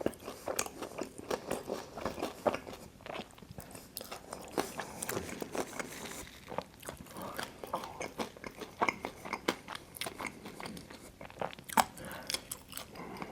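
Close-miked biting and chewing of Detroit-style pizza, with many small sharp crunches from the crisp crust.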